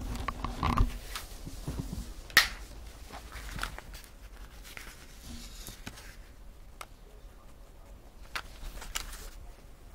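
Rustling and crinkling of a diamond painting canvas and its clear cover film being handled and lifted at the corner off the sticky surface. There is a sharp click about two and a half seconds in and a few lighter ticks later.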